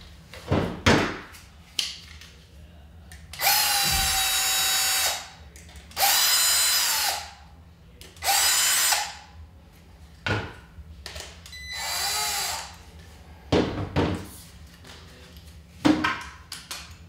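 Cordless drill with a 2.5 mm bit tightening the screws that clamp a multicopter boom into its hub. It runs in four bursts of one to two seconds each. Short clicks and knocks come between the bursts.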